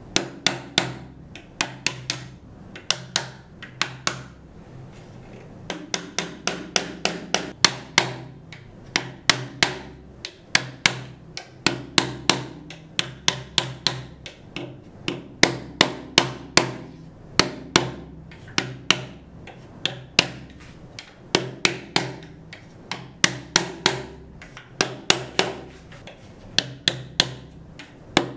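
Sharp light wooden taps in quick runs with short pauses, as the half-lap joints of a hand-cut kumiko grid are knocked home along the lattice.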